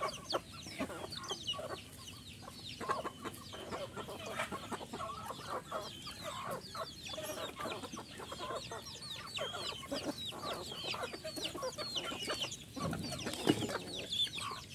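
A flock of chickens, hens, roosters and chicks, clucking and calling steadily, with many short high chirps over the clucks. There is a louder burst about thirteen seconds in.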